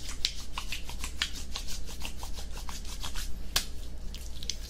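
Hands rubbing milky lotion (emulsion) onto skin close to a binaural microphone: quick, repeated moist rubbing strokes with small sticky clicks, several a second.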